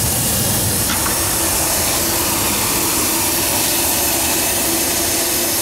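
Steam hissing steadily and loudly from a fired fire-tube boiler under pressure. The steam blower is jetting to force draft through the wood fire.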